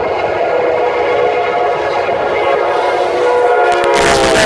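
Diesel locomotive's multi-chime air horn sounding one long, loud blast, distorted by an overloaded microphone; its pitch sags slightly near the end. A loud rushing burst cuts across it in the last second.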